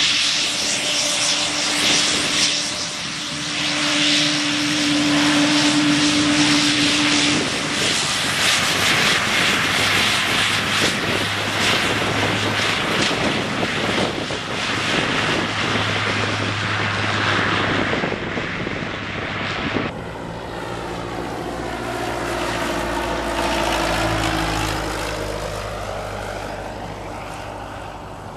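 Twin-engine turboprop taxiing close by, its engines and propellers running with a loud high whine. About two-thirds of the way in it gives way abruptly to a single-engine Cessna taking off and flying past, its engine note falling in pitch as it passes and then fading.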